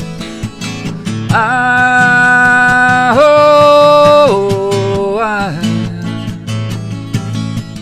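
Strummed acoustic guitar with a man's voice holding one long wordless note that steps down in pitch twice before trailing off.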